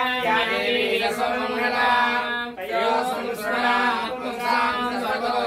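A man chanting a Sanskrit sloka on a steady, near-even pitch, with a brief breath about halfway through.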